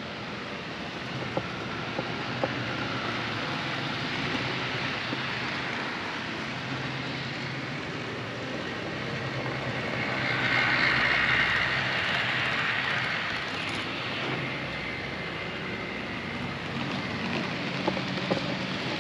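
Model trains running on a large layout: a steady rumble of electric motors and wheels on track, swelling louder for a few seconds about ten seconds in. A few sharp clicks come through it.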